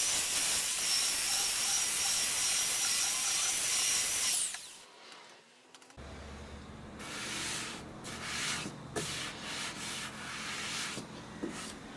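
An electric power tool runs with a steady high whine, is switched off about four seconds in and winds down with a falling whine. After a short pause come several irregular rubbing strokes on wood, like hand sanding.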